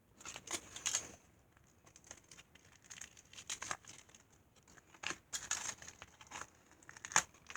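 Minifigure blind-bag packaging, wrapped in foil and tape, being crinkled and torn open by hand in irregular bursts of crackling and rustling.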